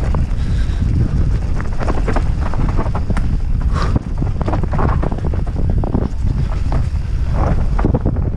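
Wind buffeting an action camera's microphone during a fast mountain-bike descent, with many short knocks and rattles from the Orbea Rallon R5 29er's tyres, chain and frame over rough trail.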